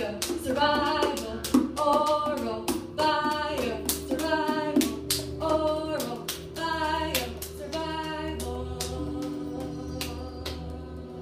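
A woman singing short wordless phrases over a steady held drone, with a regular tapping beat. The sung phrases stop about eight seconds in while the drone and the tapping go on.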